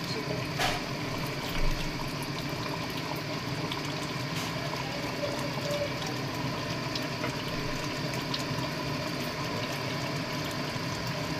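Wooden spoon stirring chicken in gravy in a large aluminium pot, with a few knocks and scrapes against the pot in the first few seconds, over a steady low mechanical hum.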